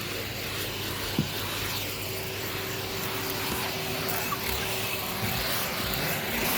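Numatic Henry canister vacuum cleaner running steadily, its hose, with the floor nozzle removed, sucking up dust from carpet. A single sharp click about a second in.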